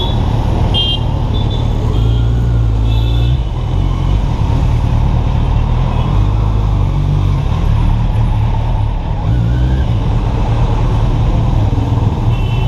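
Kawasaki Z800's inline-four engine running at low revs as the bike creeps along, a deep rumble that swells and eases every couple of seconds.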